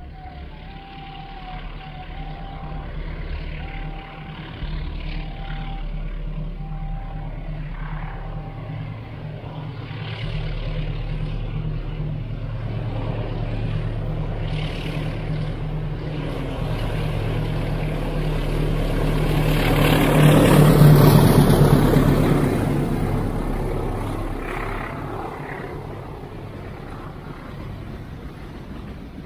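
Diesel-electric locomotive labouring as it hauls a heavily loaded container freight train. Its engine drone grows steadily louder as it approaches and is loudest as the locomotive passes about 20 seconds in. The drone then gives way to the fading rumble of the container wagons rolling by.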